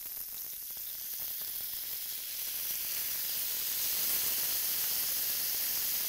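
Spam, pineapple and vegetable kebabs sizzling on a hot grill pan. The sizzle swells to a louder hiss about three seconds in, as teriyaki sauce is poured onto the hot kebabs and grill.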